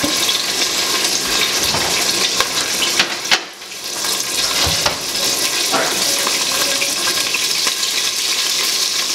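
A steady hiss, with a few light knocks and clicks of things being handled; the hiss dips briefly about three and a half seconds in.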